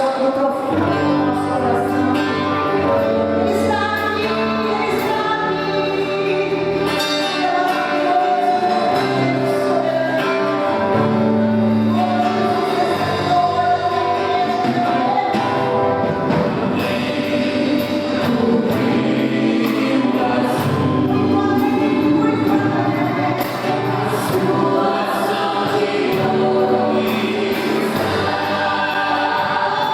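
Church worship group singing a gospel praise song together, several voices in choir, over a regular beat.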